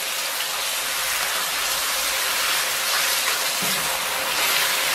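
Oil steadily sizzling in a wok as scallions, ginger and soybean paste are stir-fried with a spatula, the paste frying until fragrant.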